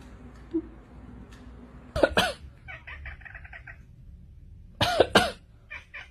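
Two pairs of short, harsh coughing sounds from an animal, one about two seconds in and one about five seconds in, with a brief quick chattering run between them.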